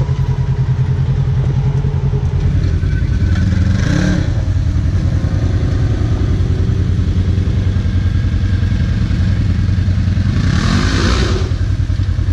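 Polaris RZR side-by-side's engine running steadily under way on a trail, its note dropping about two seconds in. Two short rushes of hissing noise come through, around four seconds in and again near the end.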